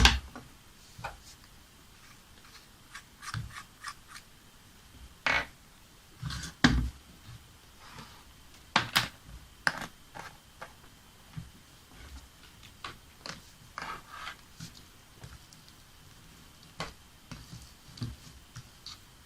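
Irregular clicks, scrapes and rubbing of small objects being handled by hand, with a few louder knocks about five, seven and nine seconds in.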